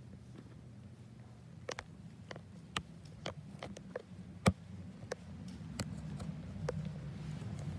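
Scattered light clicks and taps of a hand-held phone camera being handled while someone walks on carpet, with one sharper click about four and a half seconds in. A low rumble swells near the end.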